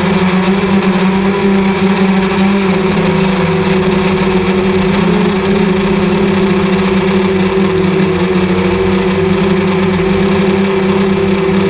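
Multirotor camera drone's motors and propellers humming steadily, a buzzing drone note with a slight waver in pitch.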